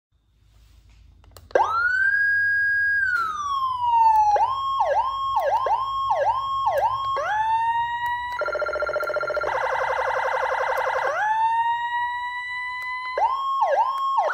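CJB100-W069 electronic vehicle siren cycling through its tones. A wail rises sharply, holds and slowly falls, then gives way to quick falling-and-rising yelps about two or three a second. A fast rapid warble follows, then another rising tone and more quick yelps near the end.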